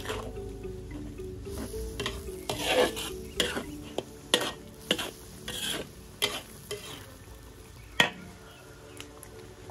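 Metal spatula stirring and scraping around a large metal wok of chili-studded sauce, in irregular strokes with occasional knocks against the pan; the sharpest knock comes about eight seconds in.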